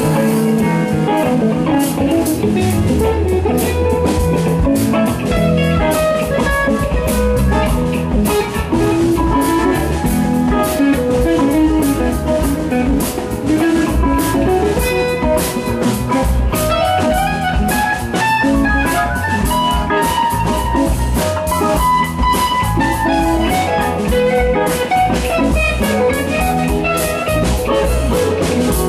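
Live rock band playing: electric guitar over a drum kit, with steady drum hits and a moving melodic line.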